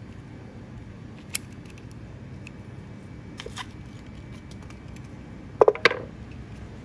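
Steel scissors snip through a rolled paper cone with one sharp click, then are laid down on a table: three quick metallic knocks with a brief ring, the loudest sound, near the end. A steady low background hiss runs underneath.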